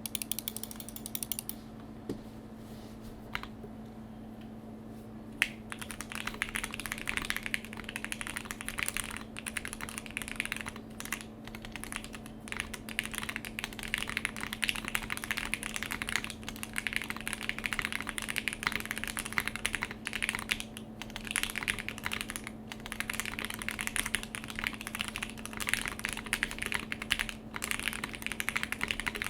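Mechanical keyboard being typed on: an ai03 Polaris with a polycarbonate plate, stock Everglide Aqua King V3 linear switches and CRP PBT keycaps. A few scattered key presses, then continuous fast typing from about five seconds in.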